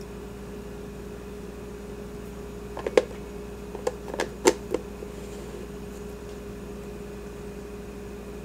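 A plastic teapot lid being fitted onto a glass teapot with a plastic infuser: a quick run of sharp clicks and taps for about two seconds, a little before the middle. A steady low hum runs under it throughout.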